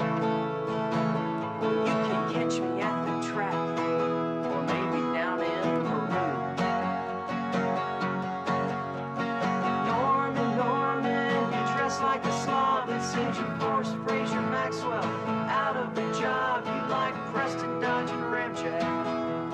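Two acoustic guitars played together in a steady instrumental passage, chords strummed with picked notes running over them.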